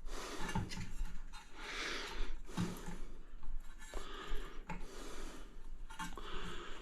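A hand tool rasping against the cut edge of a ceramic tile in several short, uneven strokes with gaps between them.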